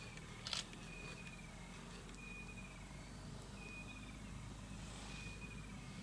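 Quiet bush ambience: a short, high call that dips at its end, repeated about every second and a half, with one sharp click about half a second in.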